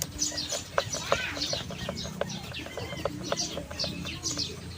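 Birds chirping: many short, quick falling chirps repeating. A few light clicks and knocks are scattered among them.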